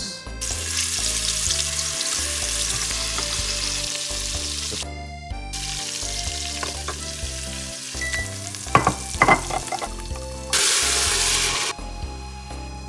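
Beef chunks searing in a hot Instant Pot inner pot: a steady sizzle that stops briefly about five seconds in and then starts again as more meat goes in, with a few sharp metal clinks of tongs against the bowl and pot. Near the end comes a short, louder rush of tap water running into a glass measuring cup.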